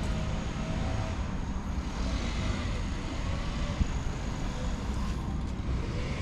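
Pressure washer's engine running steadily, a low hum under a broad hiss.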